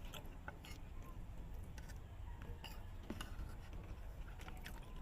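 Faint scattered clicks and light taps of cutlery on a plate during a meal, over a low background rumble.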